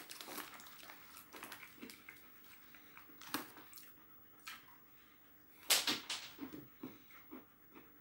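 Faint sounds of a person eating and handling a glass: scattered small clicks and rustles, with one louder, brief noise a little before six seconds in.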